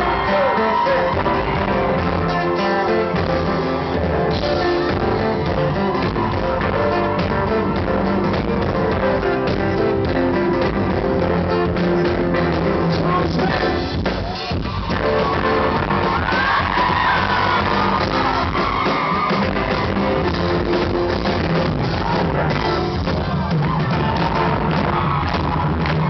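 Live pop-rock band music played loud in a large hall, with guitar and some wordless singing over it. There is a brief drop about halfway through before the music picks up again.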